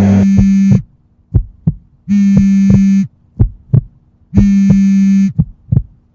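Mobile phone vibrating on a wooden table: four buzzes of about a second each, roughly two seconds apart. Paired low thumps like a heartbeat fall between them.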